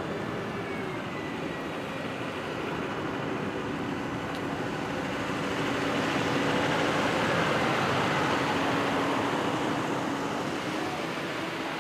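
City street traffic: a vehicle passes close by, its noise swelling to a peak partway through and then fading, over the steady hum of the street.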